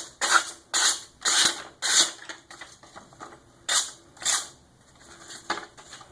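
Cold Steel SRK's VG-1 steel blade stroked across the fine ceramic of a Work Sharp guided sharpening system with light pressure, honing the edge. About six quick scraping strokes in the first two seconds, then a pause, two more around four seconds in and a last one near the end.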